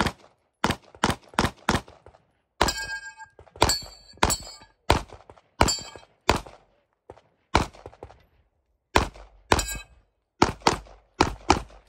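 Rapid pistol fire from a Staccato P, mostly in quick pairs, about eighteen shots. A steel target rings after the shots about two and a half and four seconds in.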